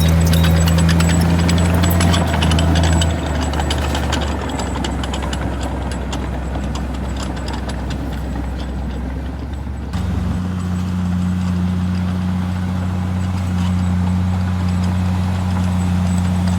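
Heavy diesel earthmoving machinery, a bulldozer and dump trucks, running steadily. There is a patter of clicks and rattles through the first half. The engine note shifts abruptly about three and about ten seconds in.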